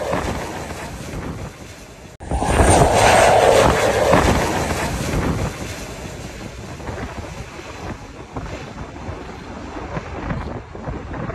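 A small plane passing low overhead on its landing approach, loudest a few seconds in and then fading as it drops away towards the runway. There is heavy wind noise on the microphone throughout.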